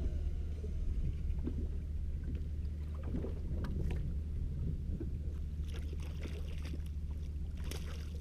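Steady low drone of the boat's idling outboard motor, with scattered clicks and knocks on the boat and, near the end, splashing as a landing net goes into the water.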